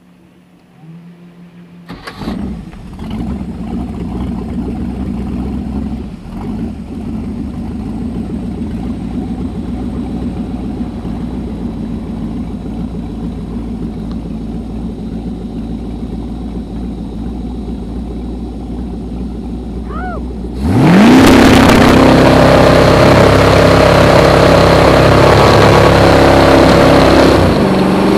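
Ski boat engine starts about two seconds in and runs at a steady idle. About 21 seconds in it revs up sharply to full throttle to pull a water-skier up, joined by the loud rush of the boat's wake.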